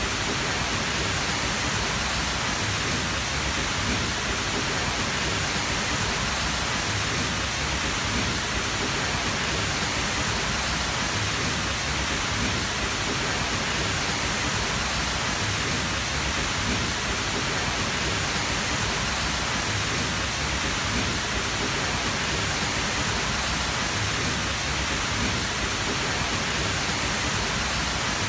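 A tall waterfall: water falling and rushing in a steady, unbroken roar.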